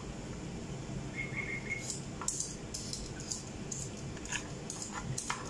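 Kitchen knife slicing pickled gherkins on a plastic cutting board: irregular soft taps as the blade cuts through and meets the board.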